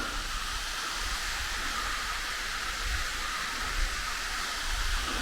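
Waterfall with a low flow of water: a steady rushing hiss of falling water.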